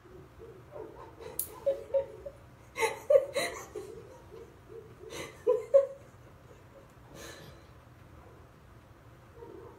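A pet whimpering and crying out in short bursts as its nails are clipped. The loudest cries come about three seconds in and again a little past five seconds, then they die down.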